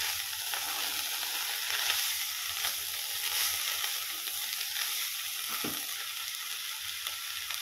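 Fresh young chickpea leaves sizzling in hot oil in a kadhai while being stirred with a steel spatula: a steady frying hiss with light stirring noises.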